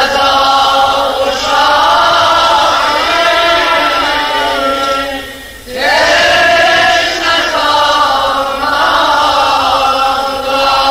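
Vocal chant of a religious lament, voices holding long, slowly bending notes in two long phrases with a brief break about five and a half seconds in.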